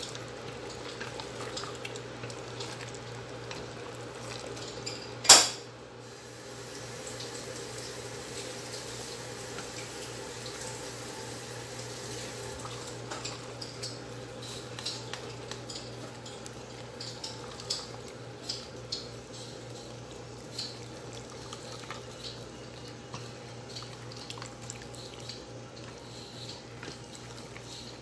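Wooden spoon stirring macaroni and chicken in a stainless steel pot, with scattered light clicks and scrapes against the pot, over a steady low hum. One sharp knock about five seconds in is the loudest sound.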